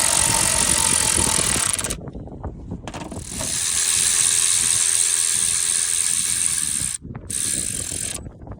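Electric ratchet running down bolts in three runs: one to about two seconds in, a longer one through the middle, and a short one near the end, with brief pauses between.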